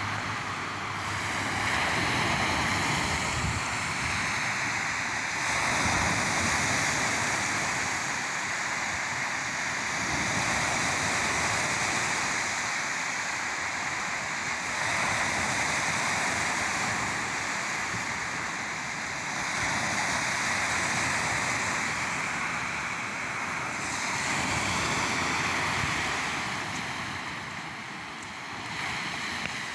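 Sea surf washing onto a sandy beach, each wave swelling and falling back about every four to five seconds.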